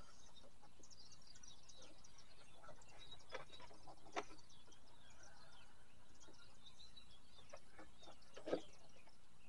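Birds chirping faintly in the background, with a few soft knocks, the loudest near the end.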